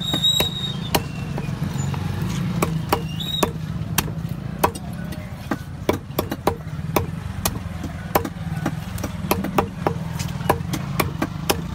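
Large fish-cutting knife chopping through small trevally onto a wooden block: sharp knocks at an uneven pace, about two to three a second, over a steady low hum.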